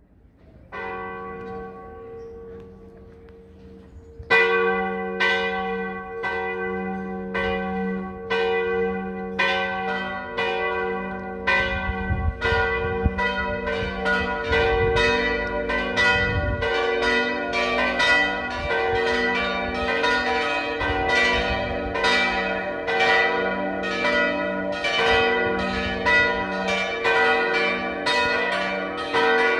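Full peal of four post-war Oberascher church bells, tuned g', b', d'' and e'' and out of tune with one another, swinging and striking. The strokes start softly just under a second in and get much louder about four seconds in. They then grow denser and overlap as the bells ring together.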